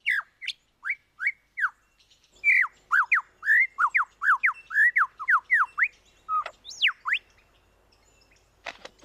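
Male superb lyrebird singing: clear whistled notes that sweep downward, first a few spaced apart, then a rapid run of about four a second, then two longer falling notes. A short, sharp crack comes near the end.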